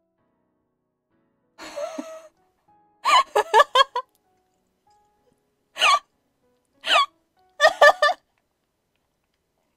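A young woman laughing in short bursts. There is a breathy burst about two seconds in, then a rapid run of laughs, then two brief high squeals with sliding pitch, and a last loud burst near the end.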